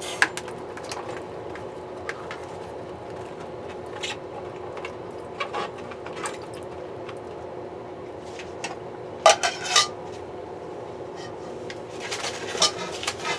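Cut eggplant pieces tipped from a dish into a bowl of salted water and pressed down by hand: scattered light knocks and clinks of the dish and pieces against the bowl, with louder clusters about nine and twelve seconds in, over a steady hum.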